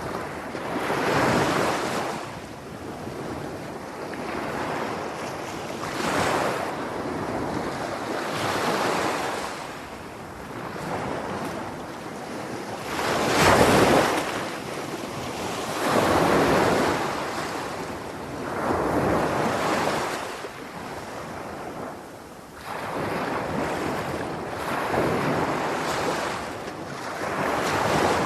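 Sea waves breaking and washing on the shore, a noisy rush that swells and falls every two to three seconds, the biggest wave about halfway through.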